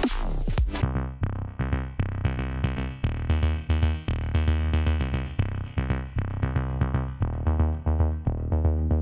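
Electronic background music with a drum-machine beat and synthesizer chords; the sound changes about a second in, dropping its highest sounds and settling into a steady pulsing pattern.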